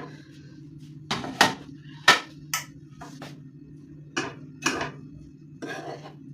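Utensils clinking, knocking and scraping on plates and serving dishes as food is dished up: about eight sharp knocks and one short scrape near the end, over a steady low hum.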